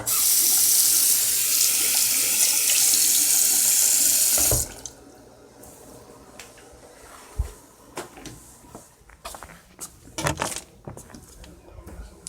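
Water tap running hard for about four and a half seconds, then shut off sharply, followed by a few faint knocks.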